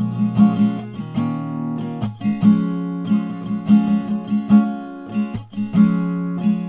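Background music: an acoustic guitar playing plucked and strummed chords at a steady, regular pace.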